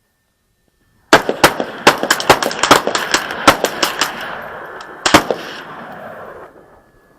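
Volley of rapid gunfire from several guns firing together: about fifteen overlapping shots over some four seconds, starting about a second in. The rolling echo dies away near the end.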